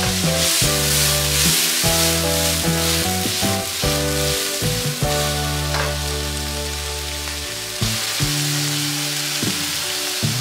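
Meat and sauce sizzling in a hot wok, a steady frying hiss, over background music.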